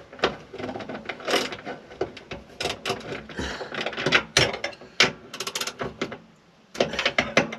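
Ratchet wrench with a 13 mm socket clicking in quick runs as the bolts of a spare wheel carrier bracket are tightened, with a short pause near the end.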